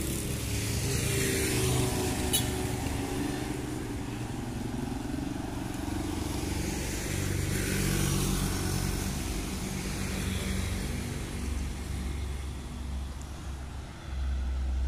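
Road traffic passing close by: motorcycles and other motor vehicles going by one after another, their engine sounds rising and fading with each pass. A sharp click comes about two seconds in, and a deeper, louder rumble swells near the end.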